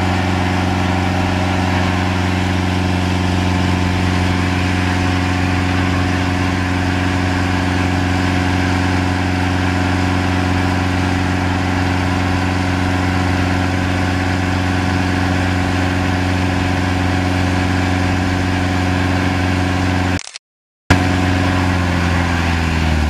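Cummins 4BT four-cylinder turbodiesel held at steady revs during a burnout, the rear tires spinning and smoking. The sound cuts out for about half a second near the end, then carries on unchanged.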